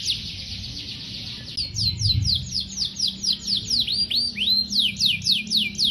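Domestic canary singing: a fast, buzzing trill for about the first second and a half, then a run of clear, separate notes that sweep downward in pitch, about three or four a second, with a couple of curving notes near the middle.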